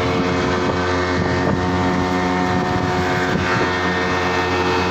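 A boat's engine running steadily and loudly at constant speed, a low hum with a steady mechanical whine over it.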